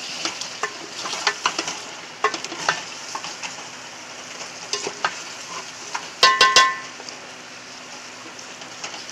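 Chicken masala frying in an aluminium pot, sizzling steadily while a wooden spoon stirs and scrapes through it with scattered clicks. About six seconds in comes a quick burst of loud, ringing metallic knocks.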